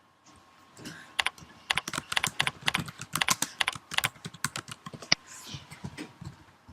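Typing on a computer keyboard: a quick, irregular run of key clicks starting about a second in and stopping shortly before the end.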